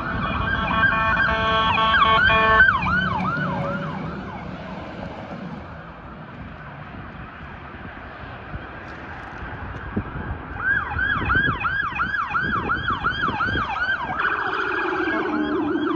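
Police car sirens passing. A steady blaring tone for the first few seconds breaks into falling yelp sweeps that fade away. About ten seconds in, another police car's fast yelp siren comes in, about three sweeps a second.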